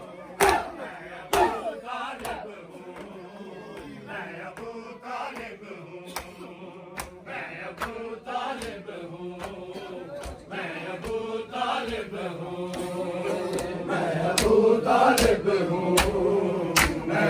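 Mourners' open palms slapping their bare chests in matam, over men's voices chanting a noha. The slaps come sparsely at first, then settle into a steady beat of about one and a half a second in the last few seconds as the chanting grows louder.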